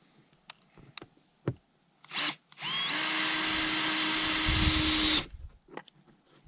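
Cordless power drill: a short trigger blip, then it spins up and runs steadily for about two and a half seconds before stopping. A few light clicks and knocks come before it.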